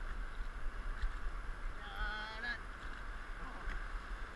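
Rumble and hiss of rushing glacial river water around a rowed inflatable raft, with a single brief honk-like squeak of an oar working in its metal oarlock about two seconds in.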